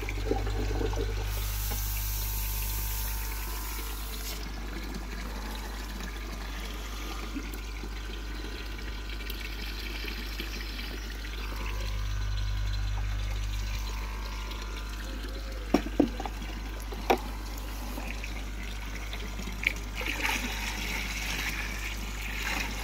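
Water trickling and splashing steadily over a low hum, with a few sharp knocks about two-thirds of the way in. Near the end, potassium permanganate solution is poured from a plastic bucket into the koi pond.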